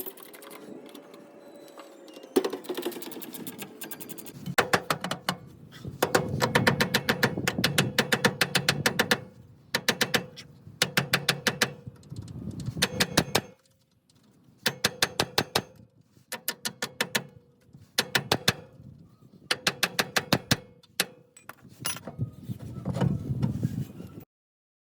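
Hand ratchet clicking in rapid runs, stroke after stroke with short pauses between, as bolts that have been cracked loose are run out.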